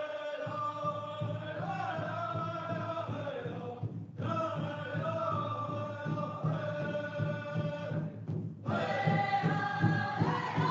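Native American-style drum meditation music: voices chanting long, held phrases over a steady low drum beat, with short breaks between phrases about four and eight and a half seconds in.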